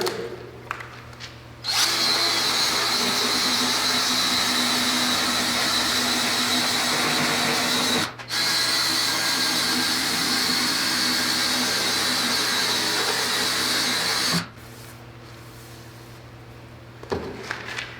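A power tool spinning a sanding wheel against the live bark edge of a black walnut slab, smoothing out gouges left by a wire wheel. It starts about two seconds in, runs steadily, cuts out briefly near the middle, then stops a few seconds before the end.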